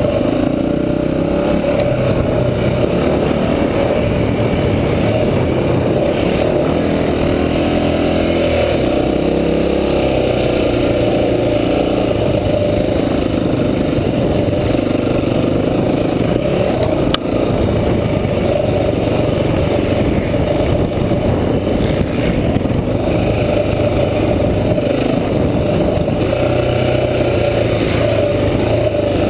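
Honda XR400's single-cylinder four-stroke dirt-bike engine running under throttle, its note stepping up and down several times with throttle and gear changes. A single sharp knock about seventeen seconds in.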